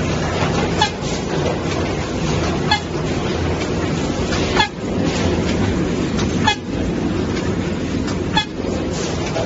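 Semi-automatic rigid box making machine running: a steady mechanical hum, with a short, sharp pitched toot about every two seconds in time with the machine's working cycle, five times in all.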